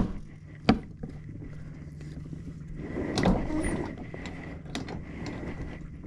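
Weathered wooden cabin hatch on a sailboat being handled: a sharp knock at the start and another under a second in, a louder scraping rub about three seconds in, and a click near five seconds, over a steady low hum.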